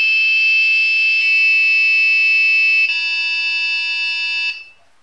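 Piezo buzzer on an Arduino (ATmega328) function generator sounding the board's PWM square-wave output as a steady, buzzy tone with many overtones, near 475 Hz at first. It steps up in pitch twice, ending near 960 Hz, then cuts off shortly before the end.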